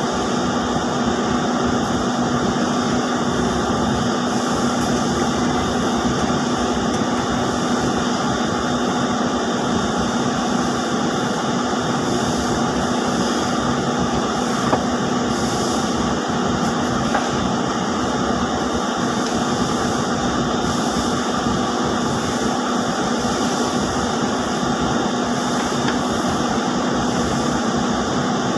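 Steady machinery din of a spinning mill with ring spinning frames running: a constant hum under an even hiss, unchanging throughout.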